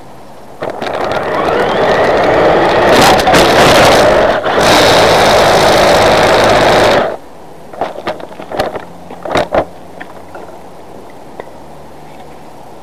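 Tamiya Hornet radio-controlled buggy driving, heard from a camera mounted on the car: its electric motor and gears run with tyre noise on asphalt, starting about half a second in and cutting off suddenly after about six seconds. A few sharp knocks follow as the car tumbles and comes to rest.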